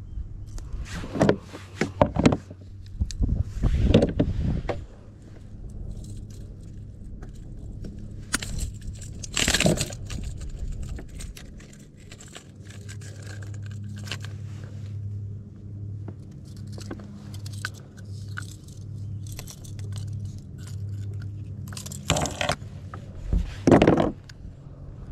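Handling noise: metal clicks, jingles and scrapes of a fish lip-grip scale and tackle being moved about in a kayak. Several sharp knocks stand out, the loudest about a second in, near ten seconds and near the end, and a low steady hum runs through the middle.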